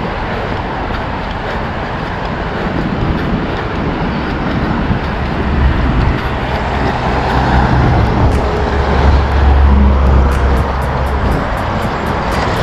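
Road traffic on a busy dual carriageway heard from a running action camera's built-in microphone. A deep rumble swells through the middle and fades as vehicles pass.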